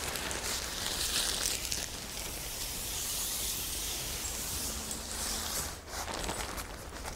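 Fabric of a Eureka Copper Canyon tent's rain fly rustling as it is pulled up by its corners and dragged over the tent frame, with a short lull about six seconds in.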